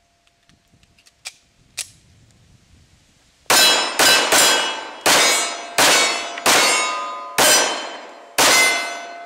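Eight shots from a centerfire handgun, a far heavier load than a .22, fired in a quick irregular string about half a second to a second apart. Each shot rings out with a long decay, with steel targets clanging. Two small metallic clicks come about a second before the string.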